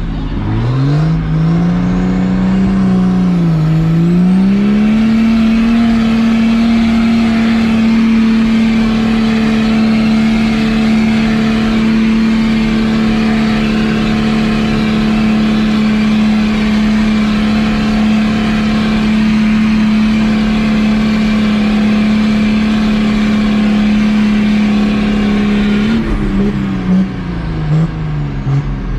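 Diesel truck engine pulling a weight sled at full throttle. It revs up, dips briefly about three seconds in, then holds a steady high rpm for some twenty seconds before it drops off and wavers near the end as the pull stops.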